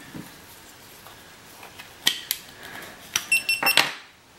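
GoPro Hero3+ camera beeping as it is accidentally switched on: one short high beep about three seconds in, among light plastic handling clicks.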